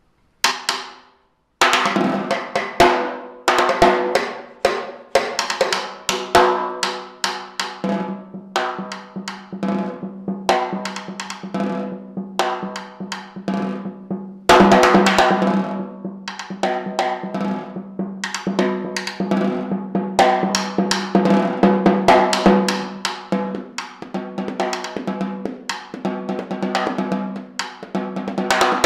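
Concert snare drum played solo with sticks: quick runs of strokes, rolls and accented hits, the drum ringing between them. A loud accent comes about halfway through.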